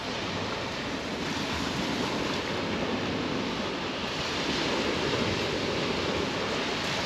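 Surf breaking and washing over a shingle beach, a steady rushing noise, with some wind buffeting the microphone.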